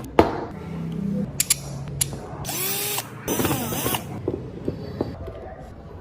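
Woodworking power tool cutting or drilling wood in short bursts, its pitch shifting as it works. Sharp clicks and knocks of workpieces and tools are handled between the bursts.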